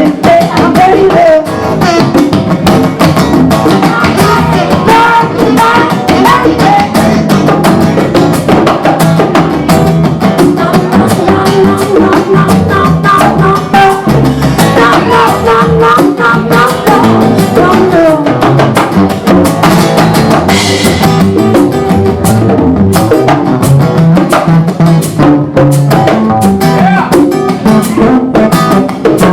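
Live acoustic band music played loud: a strummed acoustic guitar over a driving beat of bongos and other hand percussion.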